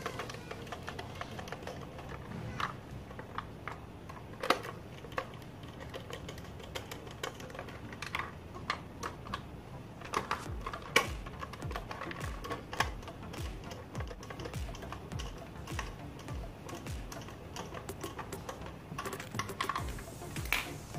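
Screwdriver and hands working on a Cosmos blender's plastic base as it is screwed back together: a run of small, irregular clicks and taps, with a couple of sharper knocks about four and a half and eleven seconds in.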